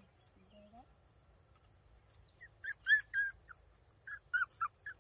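Young puppies whimpering in short high-pitched squeals: a quick run of them about halfway through, the loudest, and another run near the end.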